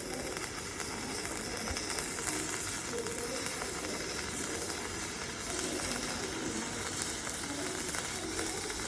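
Welding arc sizzling and crackling steadily as a bead is laid.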